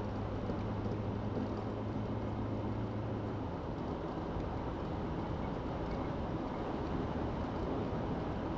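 Steady road and engine noise of a car driving along a highway, heard from inside the cabin; a low hum in it drops away about three and a half seconds in.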